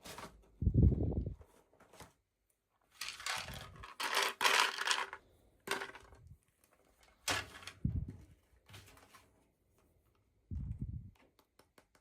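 Hands unwrapping small toy packaging: crinkling and tearing of the wrapping for a couple of seconds, with a few soft thuds of the pieces being handled or set down.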